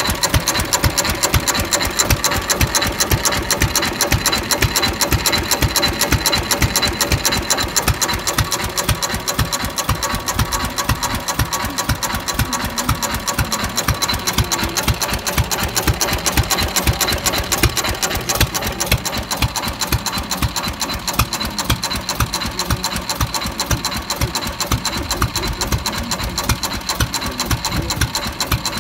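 Fairbanks-Morse Model Z 1½ hp single-cylinder hit-and-miss stationary engine running, a steady, rapid, even run of mechanical knocks.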